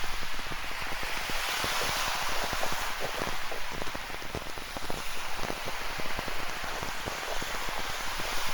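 Rain falling, with many close drops pattering as sharp individual taps over a steady rushing hiss of rain and ocean surf. The hiss swells a little about two seconds in.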